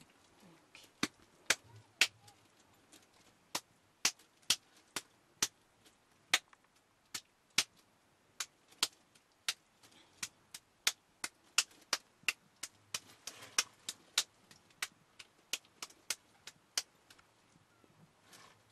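Sharp wet slaps at an uneven pace of about two a second, as a lump of fresh butter is slapped and pressed between bare hands to work the buttermilk out of it. The slapping starts about a second in and stops shortly before the end.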